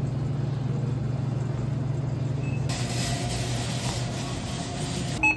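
Supermarket ambience: a steady low hum, then, about halfway through, a shopping cart rolling across a concrete floor with a brighter, even rattling hiss. A brief beep comes near the end.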